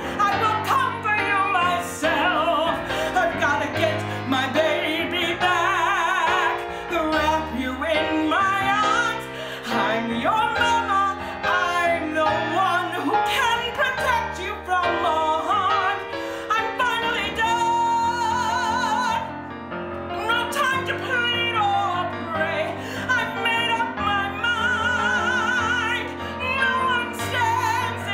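A woman singing powerfully with wide vibrato on held notes, over instrumental backing music, with a brief dip about two-thirds through.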